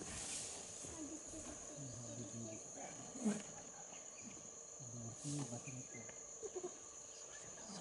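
Steady high-pitched insect drone of crickets or cicadas, with faint low sounds and a couple of soft rustles now and then.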